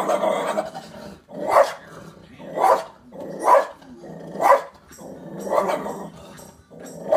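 A small dog barking repeatedly, about once a second, at dogs on a television screen. The first bark is drawn out and the rest are short.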